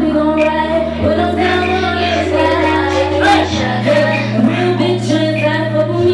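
A woman singing live over instrumental music, with held bass notes that change pitch about a second in and again near four seconds.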